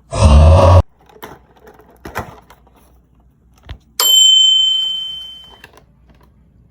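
A short, loud burst, then a few light clicks and taps as the blind-box packaging is handled. About four seconds in, a bell-like chime strikes once and rings out, fading over about a second and a half.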